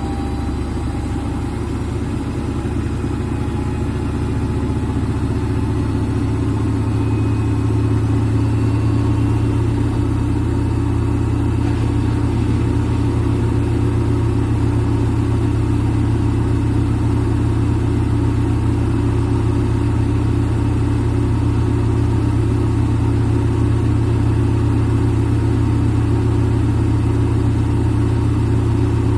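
Front-load washing machine in its spin cycle: the drum and motor run with a steady low hum, picking up speed over the first several seconds and then holding at full spin.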